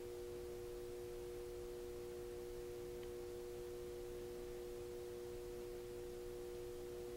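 A steady hum of two constant tones, one slightly higher than the other, holding unchanged in pitch and level.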